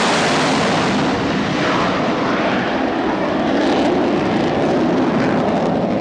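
Loud, steady rushing jet aircraft noise with slight swells.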